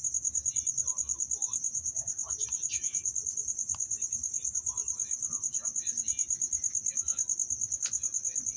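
Insect chirping: a steady, high-pitched pulsing trill of about eight to nine pulses a second, typical of a cricket.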